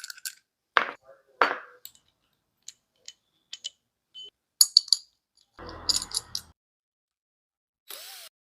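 Scattered short clinks, clicks and knocks, like hand tools and small metal parts being handled and set down, coming in irregular bursts with dead silence between them.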